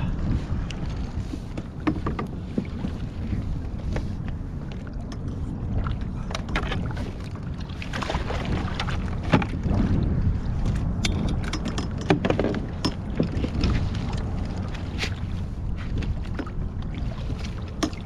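Wind noise on the microphone over a kayak on choppy sea, with water lapping at the hull and scattered small knocks and clicks throughout.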